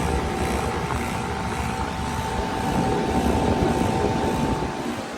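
Heat pump outdoor unit running in heat mode: the compressor and fan run steadily with a low rumble and a thin, steady whine. The compressor sounds bad, "very angry".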